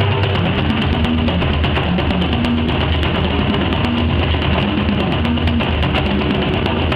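Two bodhráns played together with tippers in a fast, dense rhythm. The deep drum notes shift in pitch as they go.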